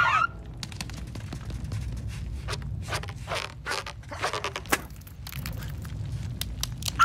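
Cartoon sound effects: a cartoon bird's squawk cut off just as it starts, then a string of small scrapes, creaks and knocks as the rhino's bulk presses down, with one louder knock about five seconds in.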